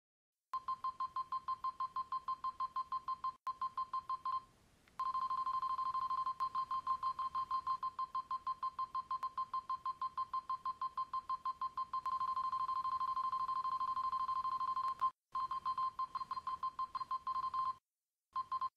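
An electronic beep at one pitch, repeated rapidly and evenly at several beeps a second, like a telephone signal tone. It breaks off briefly twice and stops shortly before the end.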